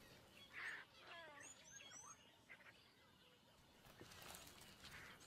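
Quiet natural ambience with a few faint bird calls, including several short high chirps about two seconds in.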